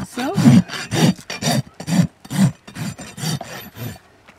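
Steel hoof rasp filing the underside of a horse's hoof during a barefoot trim: about ten harsh, scraping strokes, two to three a second, stopping just before the end.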